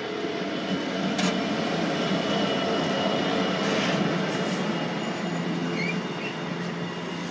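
Class 66 diesel-electric freight locomotive hauling its train past, its two-stroke V12 engine holding a steady drone over the rumble of the wagons on the rails, with a couple of sharp clicks about one and four seconds in.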